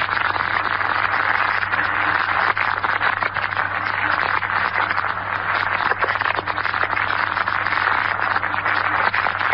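Steady, loud hiss and crackle of static over a low hum on a 1941 radio broadcast recording: dead air while the network line switches back to New York.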